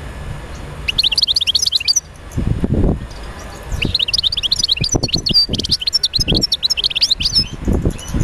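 Bird chirping in quick runs of short, high notes: a brief burst about a second in, then a longer run from about four seconds to near the end, over irregular low rumbles and thuds.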